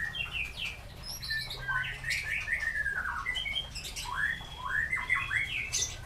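White-rumped shamas (murai batu) calling: a quick string of short chirps and whistled notes that slide up and down in pitch.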